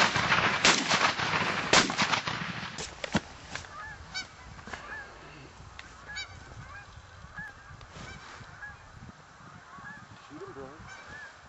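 A flock of Canada geese honking, loud through the first three seconds, then dropping to quieter short calls repeated about once or twice a second as the birds settle on the ground.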